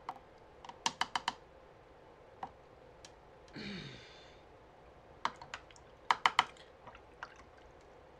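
Clusters of sharp, light clicks, three or four in quick succession, about a second in and again twice between five and six and a half seconds. A short hummed voice sound falls in pitch near the middle.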